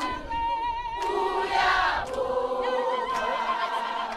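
A group of people singing together, several voices at once, holding long notes.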